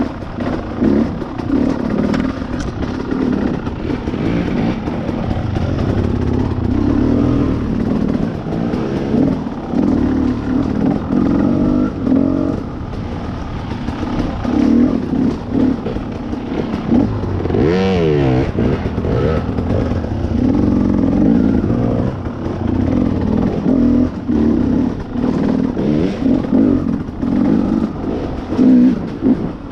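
Dirt bike engine under way, its revs rising and falling with the throttle throughout, with a quick sharp rev up and back down about 18 seconds in.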